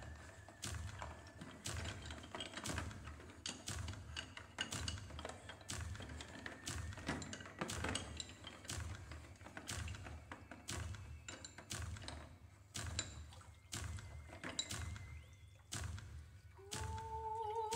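Contemporary music for percussion and tape: scattered dry knocks and taps over a soft low pulse and faint held tones. About a second before the end, the coloratura soprano comes in on a high held note with wide vibrato.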